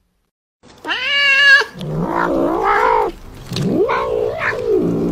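Tabby cat yowling as it reaches for food held at a person's mouth: a brief silence, then a high meow about a second in, followed by several longer, lower, wavering yowls.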